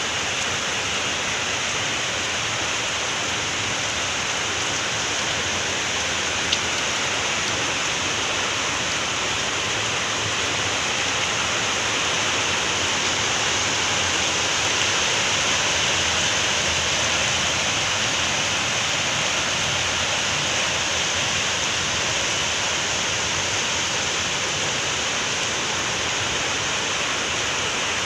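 Steady heavy rain falling, a dense even hiss that swells slightly around the middle, with one brief tick about six seconds in.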